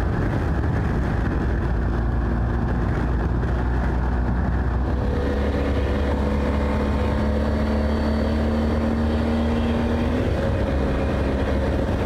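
Wind rushing over the microphone of a motorcycle on the move, with the BMW R 1250 GS's boxer-twin engine running at a steady road speed underneath. About five seconds in the sound changes and a steady engine hum comes through more clearly.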